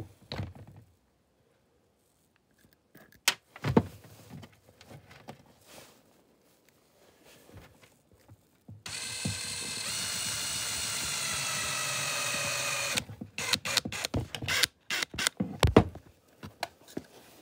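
Power drill-driver running for about four seconds, screwing a carbide traction stud into a rubber boot sole, its whine falling slightly in pitch. Sharp clicks and knocks come before and after it.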